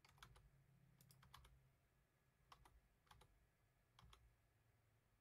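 Faint clicks of computer keys being pressed, a few scattered single presses and pairs, over a faint steady low hum.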